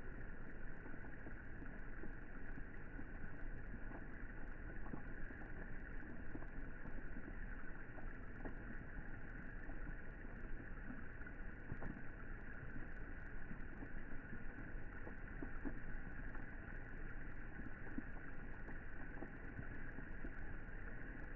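Steady rain falling on the water of a pool: an even hiss with occasional faint drop taps.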